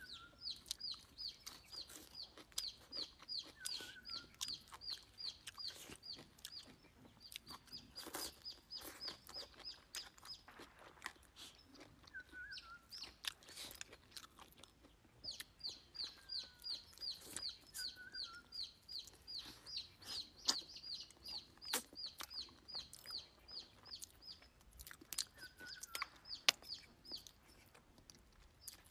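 Bird calling in long runs of short, high chirps at an even three to four a second, with a few lower chirps and short breaks between runs. Scattered clicks and crunches of chewing.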